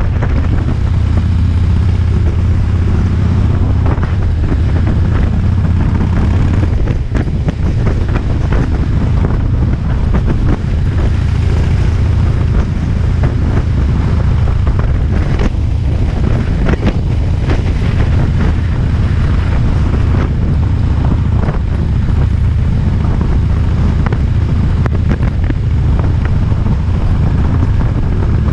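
Motorcycle engine running steadily at cruising speed, a low drone, under heavy wind noise on the microphone.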